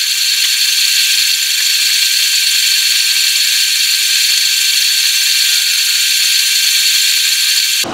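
Metal lathe running with a four-jaw chuck spinning, the tool cutting the workpiece: a steady high-pitched whir and hiss that cuts off suddenly near the end.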